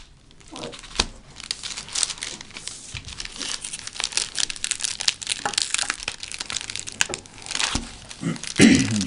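White foam packing wrap crinkling and rustling in a child's hands as the package is unwrapped, with irregular crackles that grow denser a couple of seconds in.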